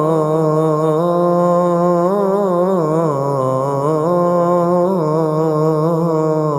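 Adhan, the Islamic call to prayer, sung by a single voice, drawing out a long melismatic line with held notes that turn and slide in pitch.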